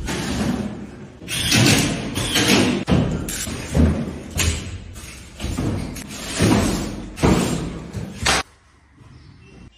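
Irregular heavy thumps and knocks of drywall work, as gypsum board and metal strips are handled and pressed against a metal-stud ceiling frame. There are about eight of them, and they stop near the end.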